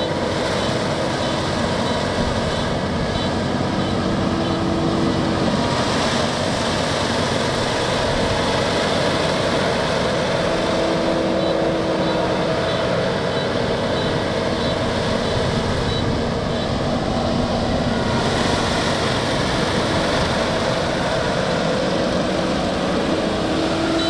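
Kubota DR6130SX combine harvester running steadily while it cuts and threshes rice: a constant engine and machinery drone.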